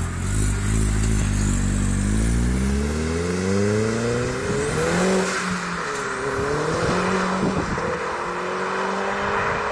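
Modified Seat Leon Cupra R's turbocharged four-cylinder engine, with a 3-inch downpipe, sports cat and Blueflame cat-back exhaust, accelerating hard. The engine note climbs steadily for about five seconds, drops at a gear change, then pulls up again more slowly in the next gear.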